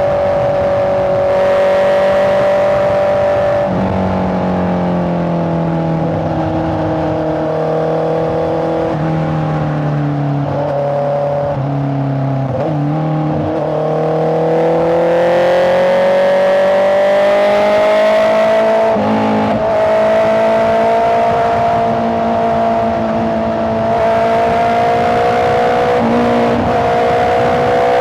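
Honda CBR650R inline-four engine running while riding, heard from the rider's position. The engine note drops and climbs with throttle, with a long steady rise in pitch under acceleration in the middle and a few brief breaks in the note.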